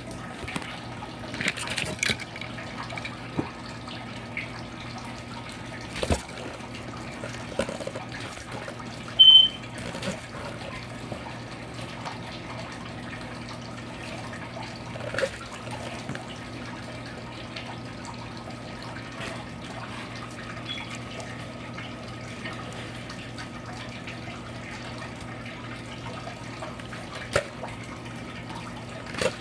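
Handling noises, scattered knocks and clicks, over a steady low hum, with a short high electronic beep about nine seconds in, the loudest sound, typical of a digital scale being switched on for weighing.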